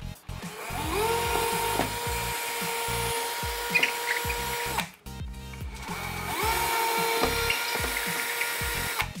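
Cordless drill with a masonry bit drilling up into the plaster of a window recess, in two runs of about four seconds each. Each run starts with the motor whine rising as it spins up and then holds steady, with a brief stop about five seconds in. Background music with a beat plays underneath.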